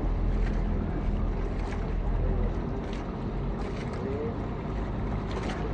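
Outrigger bangka under way at sea: its engine drones steadily, with wind and rushing water over it.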